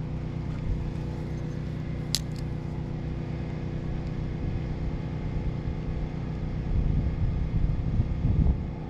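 Steady engine drone with a single sharp click about two seconds in and louder, deeper rumbling near the end.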